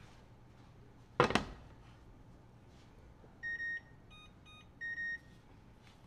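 A sharp clatter about a second in, then electronic beeps from a kitchen appliance's control panel: one long beep, two short beeps at a different pitch, and a second long beep.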